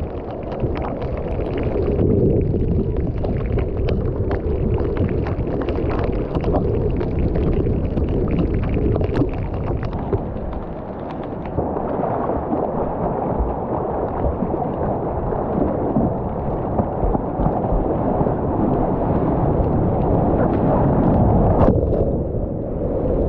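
Seawater rushing and splashing right at the microphone as a surfboard is paddled through choppy water and then rides a small breaking wave, with many sharp ticks through it. The rush grows louder and brighter from about twelve seconds in.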